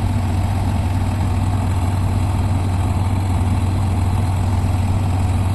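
Heavy machine's diesel engine running steadily at a constant speed, with a strong low hum.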